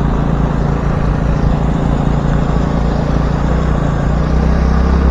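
A vehicle engine running steadily on the move, with road noise. The low hum grows a little louder about four seconds in.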